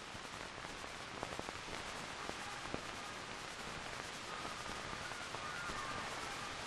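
Steady hiss with a few faint clicks, the background noise of an old film soundtrack; faint musical tones start to come in near the end.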